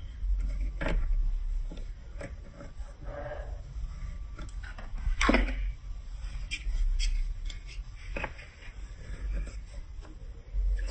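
Plastic marble-run building-block pieces clicking and knocking, about a dozen scattered irregular taps, the loudest about five seconds in, over a steady low hum.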